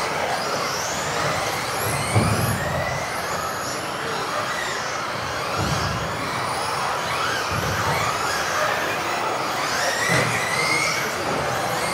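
Several electric RC off-road cars racing together, their motors whining high and gliding up and down in pitch as they accelerate and slow, over tyre noise. A few low thumps come through, the clearest about two seconds in and again near six seconds.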